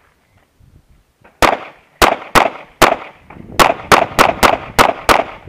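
Handgun fired in a rapid string of about ten shots, the first about a second and a half in, then in quick pairs and runs, each a sharp crack with a short echo.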